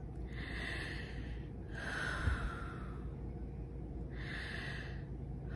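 A woman taking slow, deep breaths: a breath of air in and a longer breath out, then a second breath in near the end.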